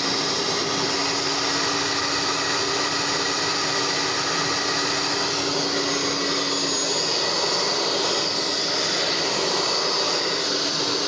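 Hair dryer running steadily on full, a rush of air with a steady whine over it, its motor freshly fitted with new carbon brushes and blowing hot air.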